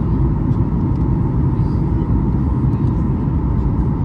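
Steady in-flight cabin noise of a Boeing 737 MAX 8: a low rumble of airflow and its CFM LEAP-1B engines, with a faint steady hum above it.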